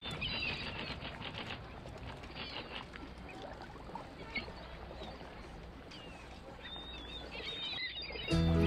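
Birds chirping in short gliding calls over a steady low rumble; music starts abruptly near the end.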